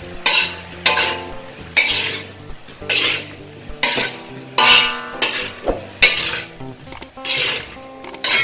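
Metal spatula scraping and clanking around an aluminium wok while stirring pineapple chunks, in strokes about once a second.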